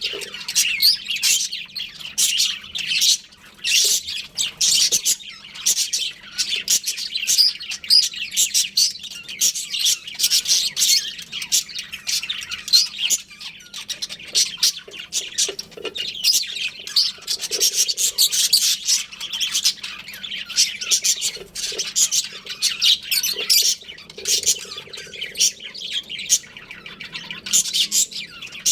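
Budgerigars chattering and chirping, many short high chirps overlapping in a continuous stream.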